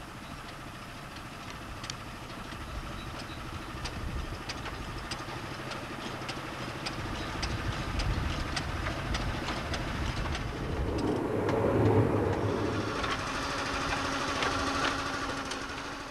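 A 10¼-inch gauge miniature railway locomotive hauling a train of coaches along the track, approaching and passing close by. It gives a steady engine beat and a quick run of clicks, growing louder and loudest about twelve seconds in.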